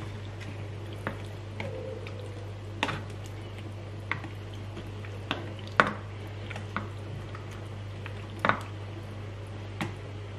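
A ladle stirring sliced pork in a stainless mesh strainer sunk in hot broth: wet squishing of meat and liquid, with about eight light knocks and clinks of ladle and strainer against the steel pot, the loudest a little past halfway. A steady low hum runs underneath.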